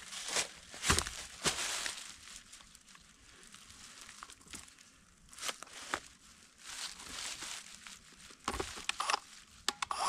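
Footsteps shuffling and crunching through dry leaf litter: irregular rustles and crackles, with a few louder crunches scattered through.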